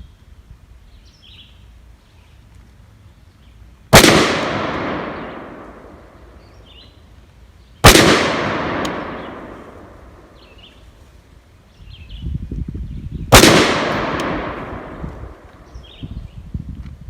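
Three single shots from a 5.56 PSA AR pistol, several seconds apart, each followed by a long echo that fades over about two seconds. Faint bird chirps can be heard between the shots.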